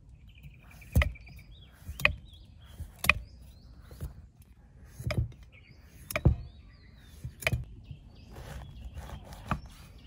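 Steady chopping, one sharp strike roughly every second, with small birds chirping between the strokes.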